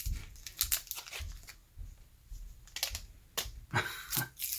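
Wax-paper wrapper of a 1990 Donruss baseball card pack crinkling and tearing as it is opened, in irregular short crackles with quiet gaps between.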